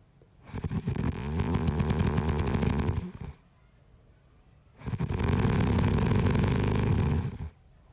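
A man snoring: two long, fluttering snores of about two and a half seconds each, the first starting about half a second in and the second about five seconds in, with near silence between them.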